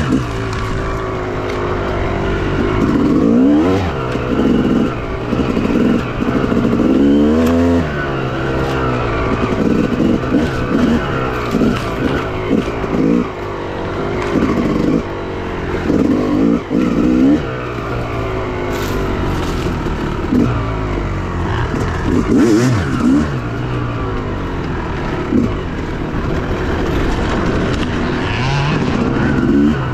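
Two-stroke enduro dirt bike engine revving up and down over and over as the throttle is worked while riding, its pitch rising and falling every second or two.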